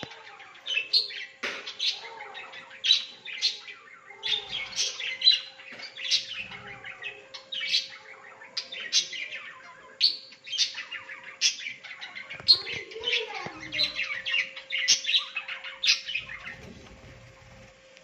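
A colony of budgerigars chirping and chattering without pause, many short high chirps overlapping.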